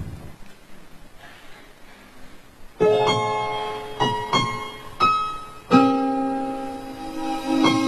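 Slow background piano music: soft for the first few seconds, then chords and single notes struck from about three seconds in, each left to ring.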